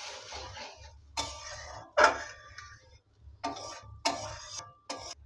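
Metal spatula stirring watery masala gravy in a metal kadai, a soft swishing for about the first second, then about five sharp metallic knocks of the spatula against the pan, some ringing briefly, the loudest about two seconds in.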